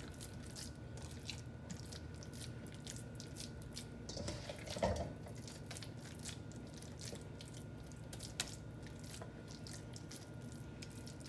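Hands pressing and patting a raw ground-beef meatloaf mixture into a baking dish: faint, wet squishing with many small sticky clicks, and one slightly louder moment about five seconds in.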